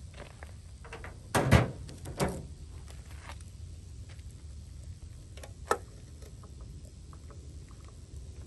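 Hand tools knocking and clanking on a bare cylinder head while a 10 mm bolt is worked out of the engine's VVT solenoid: a few separate sharp metal knocks, the loudest about one and a half seconds in, another just after two seconds, and a short sharp click near six seconds.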